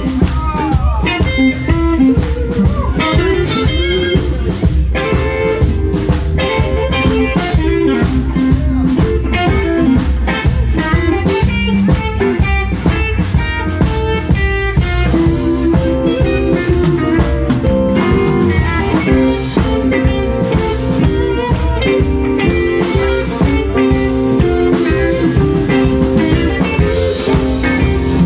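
Live blues band playing: electric guitars over bass guitar and a drum kit, with a steady drum beat throughout.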